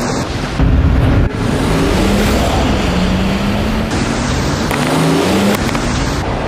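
BMW X5's engine revving under hard acceleration, its pitch rising and dropping several times as it shifts, over a rush of tyre and dirt noise.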